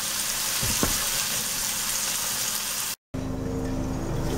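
Chopped tomatoes, cilantro and garlic sizzling steadily in hot oil in a nonstick pan, with one light click about a second in. The sound cuts out for a moment near the end, then the sizzling comes back quieter under a steady hum.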